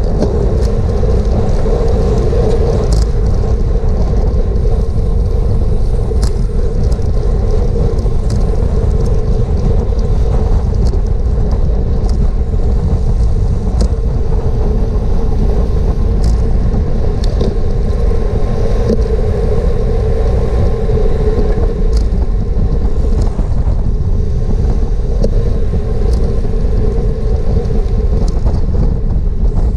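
Steady wind and road noise on a camera mounted on a racing bicycle moving at speed, with a few faint ticks.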